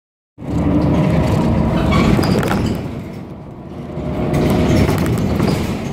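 City bus driving along, heard from inside the cabin: engine and road rumble with rattling and clicking. The sound starts abruptly about half a second in and eases briefly around the middle.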